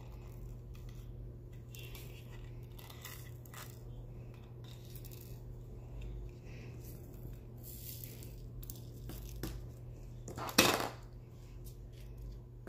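Small plastic clicks and handling noises from diamond-painting supplies: a plastic storage case and little pots of resin drills being picked up and moved. There is one louder, short clatter about ten and a half seconds in.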